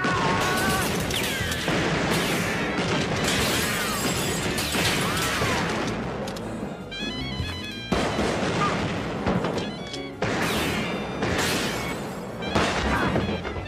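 Action-film car chase soundtrack: music mixed with loud bangs and crashes. Sharp new hits come about eight, ten and twelve and a half seconds in.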